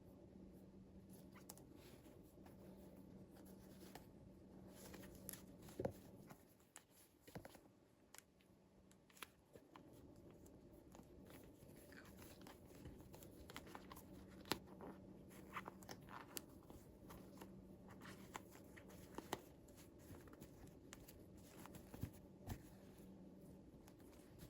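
Faint, scattered small clicks and light rustling of hands handling small toy pieces and packaging, over a faint steady low hum.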